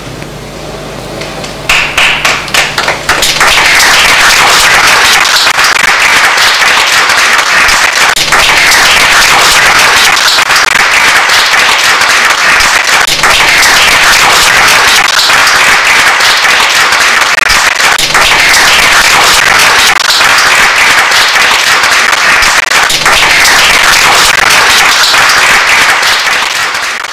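Theatre audience applauding. It starts with a few scattered claps about two seconds in, swells into steady, loud applause within a second, and cuts off abruptly at the end.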